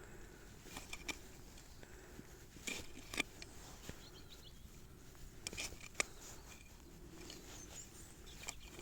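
Soft, scattered scrapes and clicks of hand-digging in pasture soil, searching a hole for a detector target. The sharpest clicks come about 3 and 6 seconds in.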